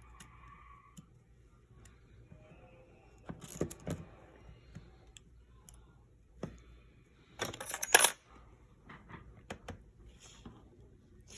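Small metal parts clicking and clinking as the iPhone 11's internal metal bracket covers are handled and fitted back in place with tools, with a few sharp clicks about three and a half seconds in and a louder jangling clatter about eight seconds in.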